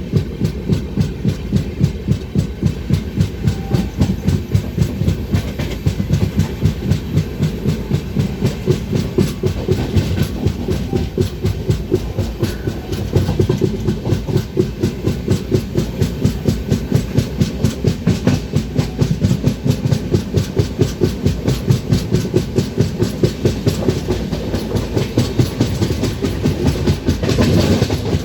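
Train wheels running over the rail joints at speed, a fast, even clickety-clack over a steady rumble.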